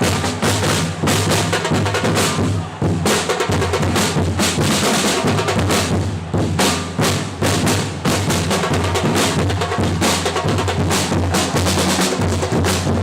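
A football supporters' drum section (bass drums and snare drums) beating a steady, fast rhythm without a break.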